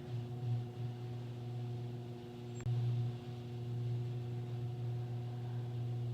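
Garage door opener running, a steady low hum, with a single click about two and a half seconds in.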